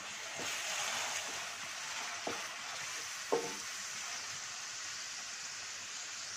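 Masala paste, onions, green chillies and curry leaves sizzling in hot oil in a stainless-steel pan while a wooden spatula stirs them. The spatula knocks against the pan twice a couple of seconds in, the second knock with a short ring.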